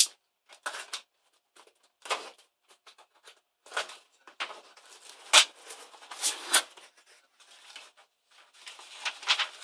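A cardboard shipping box being handled and opened: a series of short scrapes, rustles and tearing sounds of cardboard and packing tape. Near the end, paper rustles as a sheet is pulled out of the box.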